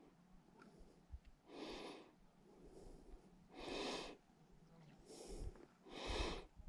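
A man's faint breathing close to the microphone, a breath about every second, every other one louder.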